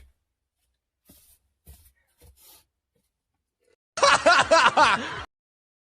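A person laughing in a short run of quick pulses, about four seconds in and lasting just over a second; before it there are only a few faint ticks.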